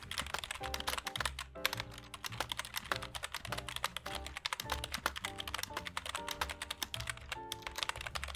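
Continuous fast typing on a stock Logitech G213 Prodigy membrane keyboard with a few years of use, a dense stream of keystroke clicks. Background music with sustained chords plays under it.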